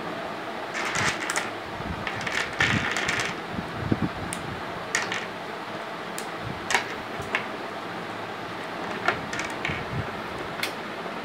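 Small plastic flower-shaped building blocks clattering in the hand for the first few seconds, then snapping together and being set down in single sharp clicks about once a second, over a steady background hiss.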